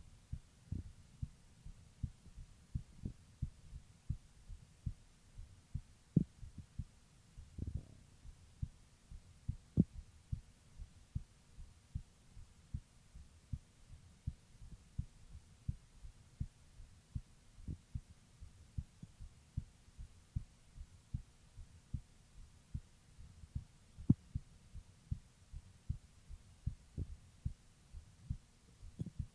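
A woman's heartbeat heard through a stethoscope: a steady rhythm of low, dull thumps, with a few louder knocks and one brief rustle along the way.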